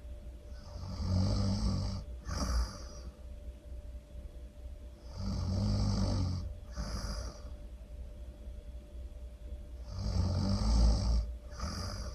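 Loud human snoring: three snores about five seconds apart. Each is a drawn-out snore of over a second followed by a shorter second snore.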